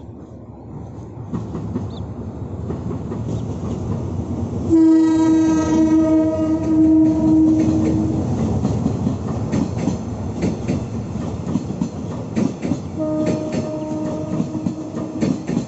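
SRT GEA-class diesel-electric locomotive approaching and passing with a rising rumble, its air horn sounding a steady blast about five seconds in that lasts some three seconds, and a second shorter blast near the end. After the locomotive passes, the coaches roll by with their wheels clicking over the rail joints.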